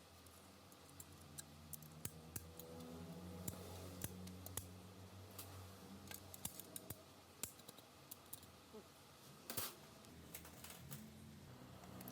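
Scattered light clicks and clinks of small metal transmission parts and tools being handled, with one louder knock near the end, over a faint low hum.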